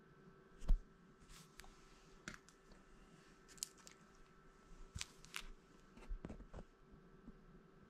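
Trading cards and their holders being handled: a knock about three-quarters of a second in, then scattered light clicks and rustles.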